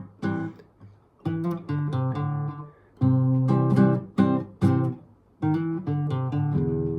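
Acoustic guitar strummed in chords, an instrumental passage between sung lines, each strum ringing briefly before the next with short near-pauses between groups.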